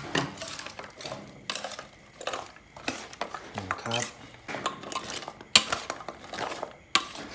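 Metal tongs clinking and scraping against a stainless steel mixing bowl in an irregular run of clinks while tossing a crispy fried fish salad.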